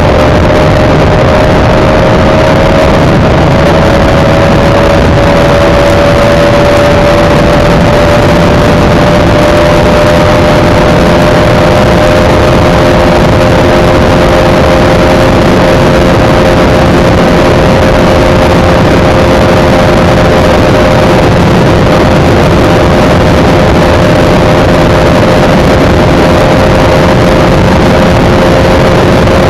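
Bajaj Pulsar RS200's single-cylinder engine held at high revs, flat out near its top speed, its pitch rising slightly in the first few seconds and then holding steady, with heavy wind rush over the microphone.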